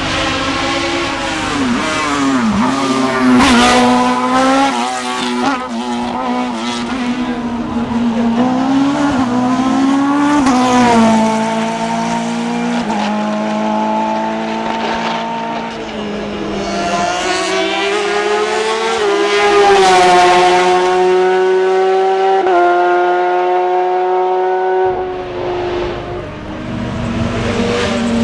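Hill-climb race car engine at high revs, rising in pitch under acceleration and stepping down suddenly at each gear change, several times across the run.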